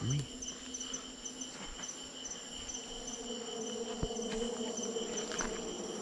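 Night crickets: a steady high trill with short chirps repeating about twice a second over it, plus a few faint footsteps.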